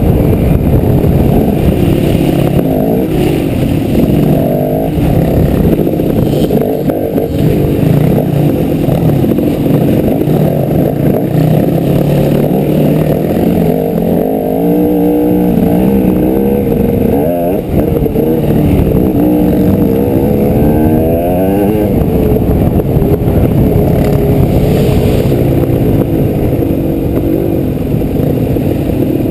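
Dirt bike engine running hard along a trail, heard from the rider's helmet, its pitch rising and falling as the throttle is opened and rolled off.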